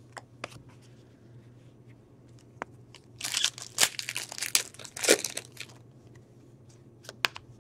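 Foil hockey card pack wrapper being torn open and crinkled, with a busy run of crinkling partway through and scattered small clicks of cards being handled before and after.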